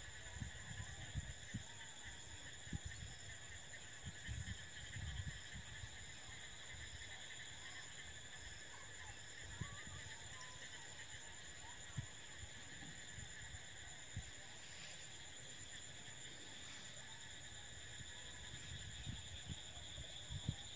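Steady chorus of insects, crickets or similar, a continuous high-pitched trilling from the surrounding paddy field. Irregular low thumps sound under it, mostly in the first few seconds and again near the end.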